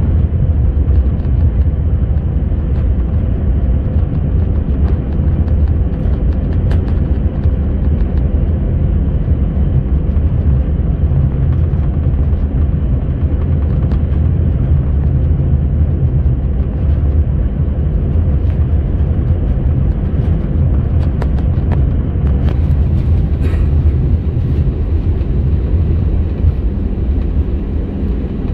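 Steady low rumble of an airliner cabin while taxiing, the jet engines running at idle, with a faint steady hum and a few small clicks and rattles.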